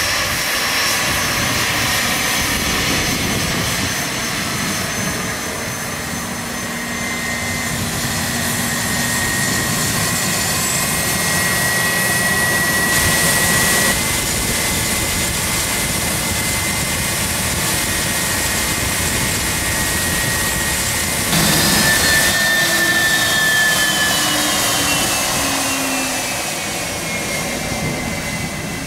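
Bombardier Challenger 350's twin Honeywell HTF7350 turbofans running as the jet taxis and turns, a steady jet rush with a high whine. About two-thirds of the way through the whine jumps up, then falls slowly in pitch to the end.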